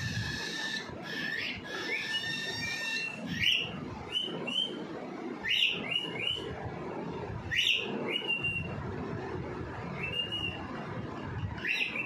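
Young cockatiel chick calling: a run of high held whistles in the first few seconds, then single sharp upward-sweeping calls about every two seconds.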